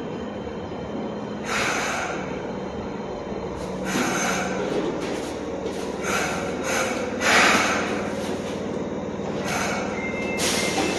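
Fukuoka City Subway train standing at the platform just after stopping, with a steady low hum from its equipment. Short hisses of air come every second or two, the loudest about seven seconds in.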